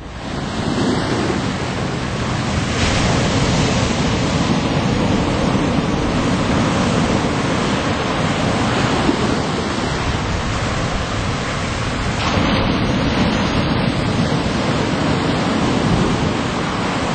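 Ocean surf breaking and washing up the beach in a steady rush of white noise, swelling and easing every few seconds as each wave comes in.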